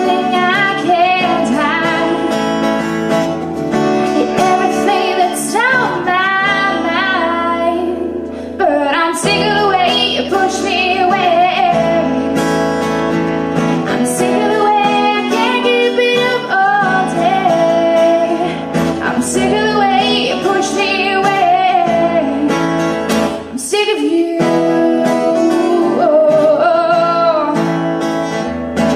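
A woman singing to her own strummed acoustic guitar, performed live through a microphone and PA.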